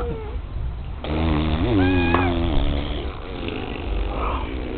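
A dog giving a drawn-out, rough, growly vocalization, a wavering 'talking' sound lasting about two seconds, starting about a second in.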